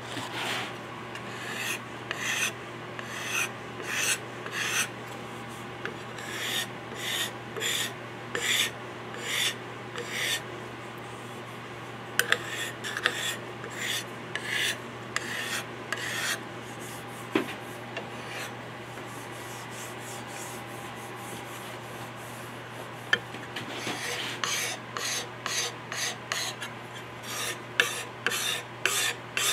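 A hand wood scraper drawn in short strokes along a curly maple gunstock, about one stroke a second, with a pause of several seconds midway.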